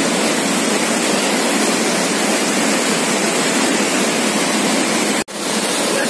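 Close-up roar of a large waterfall, a loud, steady rush of falling water in spate with monsoon flow. It briefly cuts out about five seconds in.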